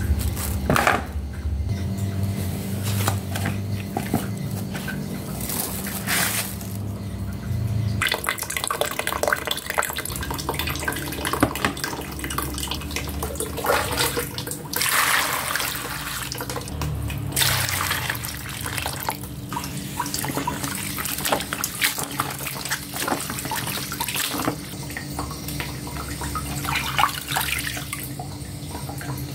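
Tap water running and splashing into a plastic basin as vegetables are rinsed, the flow swelling and easing several times.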